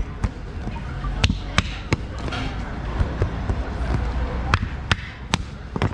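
Rolling pin knocking on the dough board at a guokui flatbread stall: sharp knocks, a few about a second in and then a run of four spaced about half a second apart near the end, over market crowd chatter.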